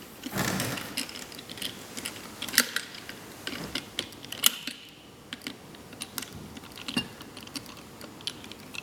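Screwdriver and small metal screw and nut clicking and scraping irregularly as the screws holding a heat press handle's sensor are worked loose, with the nut held behind by hand.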